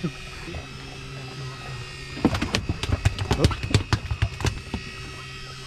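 Steady hum of the boat's motor running, with about two seconds of rapid, irregular clicking and knocking from the rod and reel being worked at the rail, starting a little past two seconds in.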